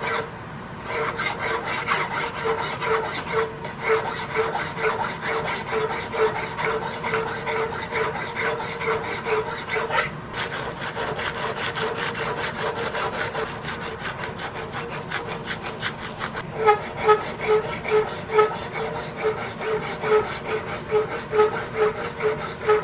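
Hand file stroked back and forth across a small metal buckhorn rear sight held in a vise, a steady rhythm of rasping strokes about two to three a second, smoothing the sight's interior face. Midway the strokes turn brighter and hissier for several seconds, then return to the even rhythm, louder and sharper near the end.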